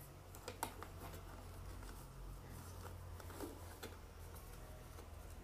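Faint, scattered plastic clicks and light knocks as the grey paint-pan strips of a Faber-Castell Connector paint box are fitted back into its red plastic case, over a low steady room hum.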